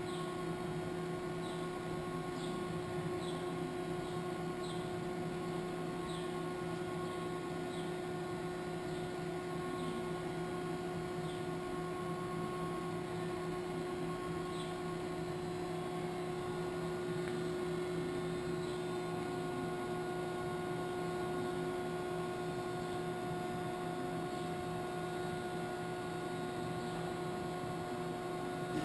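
Kitamura T-20 CNC vertical machining center running, a steady electric-motor hum with several held tones. Faint high chirps repeat about once a second through the first half, then fade out.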